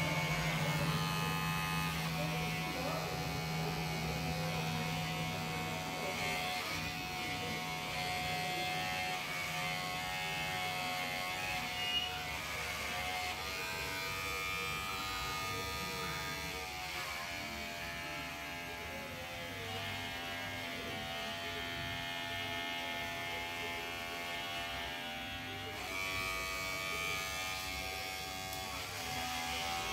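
Electric hair clipper running with a steady hum while it cuts hair at the nape; the hum shifts in pitch a few times.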